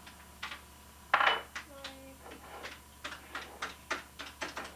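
Cash register keys clicking in quick, uneven presses as a sale is rung up, with a louder metallic clatter about a second in.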